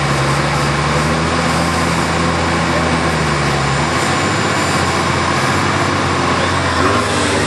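Engine of a modified competition 4WD running steadily as it crawls through a rutted gully; its low note changes and eases about four seconds in.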